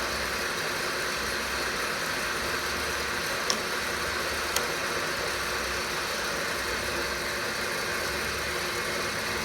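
Cheng Ki vertical milling machine running steadily under its 1.5 hp three-phase motor, with two light clicks about three and a half and four and a half seconds in.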